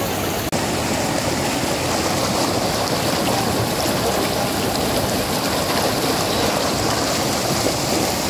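Fast, shallow mountain river rushing over rocks and stones: a steady rush of water, with a brief dropout about half a second in.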